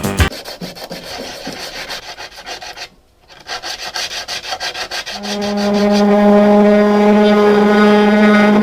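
Rapid abrasive rubbing strokes, like sanding or filing on metal, with a short pause about three seconds in. About five seconds in, a loud, steady, fixed-pitch hum of a running tool takes over.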